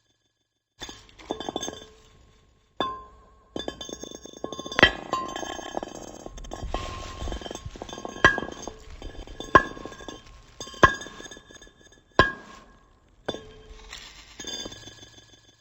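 Glass being tapped and clinked, each sharp strike leaving a clear ringing tone. A run of louder strikes about a second and a bit apart comes in the middle, with abrupt breaks of dead silence between short takes.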